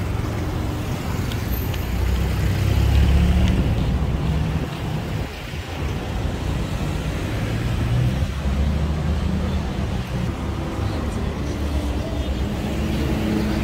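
Road traffic going by: motor vehicle engines and tyres in a steady low rumble, swelling as vehicles pass about three seconds in and again around eight seconds.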